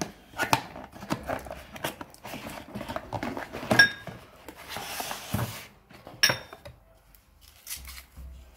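Cardboard box of a ceramic appetizer set being handled and opened: scraping, tapping and sliding cardboard, with two sharp ringing clinks of ceramic bowls knocking together, about four and six seconds in.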